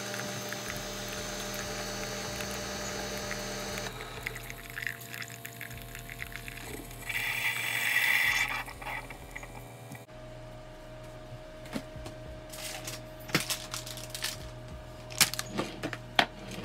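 Single-serve coffee brewer running, its pump humming as a stream of coffee pours into a ceramic mug; the hiss grows louder around seven to eight seconds in. After about ten seconds it gives way to a quieter stretch with scattered sharp clicks and knocks.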